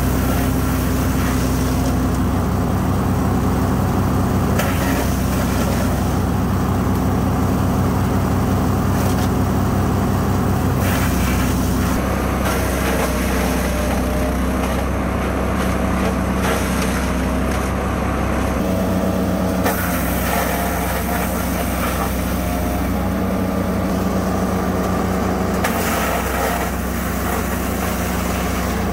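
15 hp gas-engine wood chipper running steadily at speed, its engine note shifting a couple of times as it takes on load.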